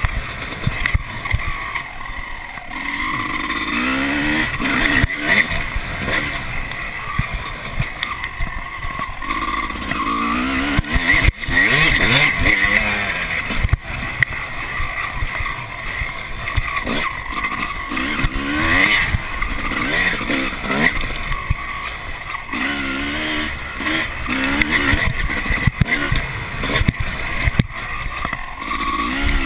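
Dirt bike engine pulling hard, its revs climbing over and over as the rider accelerates and shifts up, with knocks and wind rush on the chest-mounted camera.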